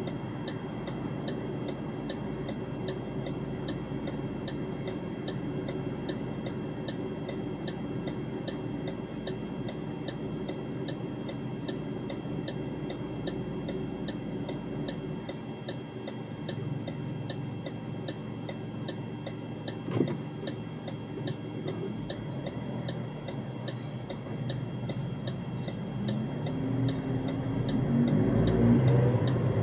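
MG ZS turn-signal indicator ticking steadily, about one and a half ticks a second, over the low hum of the idling engine in the cabin. A single sharp click about twenty seconds in, and near the end the engine note rises as the car accelerates away.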